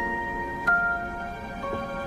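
Soft background music: slow, sustained bell-like notes struck one after another.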